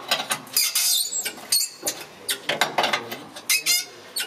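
Irregular scraping, clinks and squeaks of hand tools working against rusty steel hull plate, in quick uneven strokes.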